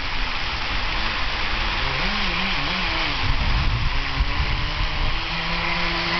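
OS .21 nitro glow outboard on an RC boat running, its faint note wavering up and down, then holding steady near the end, over a constant hiss.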